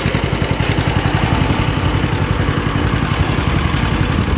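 John Deere 50's two-cylinder engine running steadily while pulling a hay rake, with a rapid, even popping beat.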